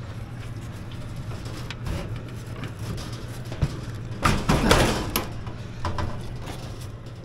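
Metal scraping and clatter from an air fryer oven being shifted in its aluminium mounting shell, a loud burst of about a second that starts about four seconds in and ends with a sharp knock, with a smaller bump a second later, over a steady low hum.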